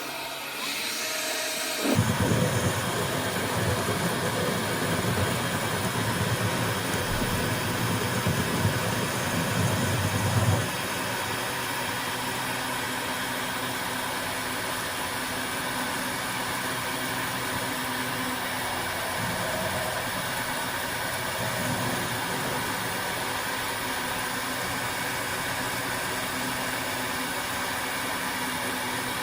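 Homemade lathe running with a steady motor hum. For about the first ten seconds a louder, rougher low rumble rides on top, then stops suddenly, leaving the even hum.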